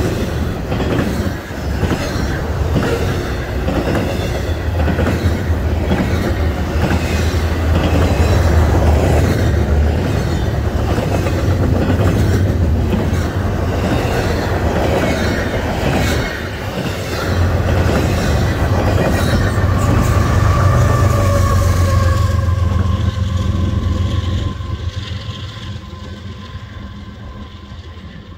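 Double-stack intermodal freight train passing at speed: a steady low rumble with wheels clattering over the rail joints. Near the end the noise fades away as the last cars pass, leaving a faint ringing tone that slowly falls in pitch.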